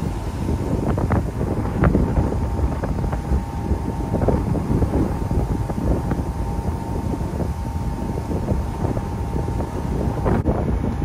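Wind buffeting the microphone on the open deck of a moving passenger ferry, over the low rumble of the ship under way and the rush of its wake, with a faint steady hum. The sound changes abruptly about a second before the end.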